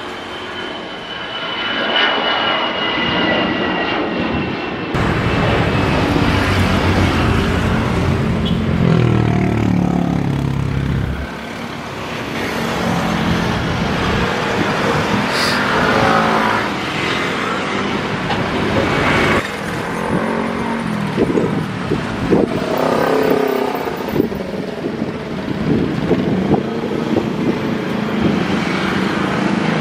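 Twin-jet airliners' engines at takeoff power as the planes lift off and climb away, a dense steady noise with falling whines as each one passes. The sound changes abruptly a few times.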